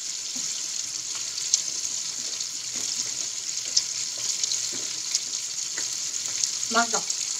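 Hot frying oil sizzling steadily, with small crackles and pops scattered through it.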